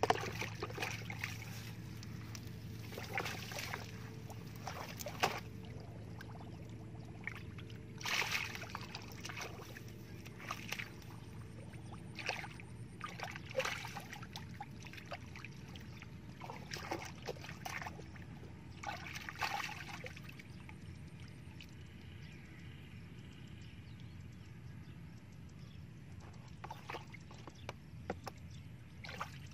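Hands splashing and sloshing in shallow muddy water while groping for fish, in short irregular bursts.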